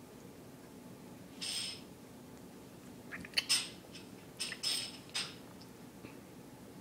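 A metal bottle cap batted by a cat across a wooden floor: a short scrape about a second and a half in, then a run of sharp metallic clicks and clinks between about three and five seconds in.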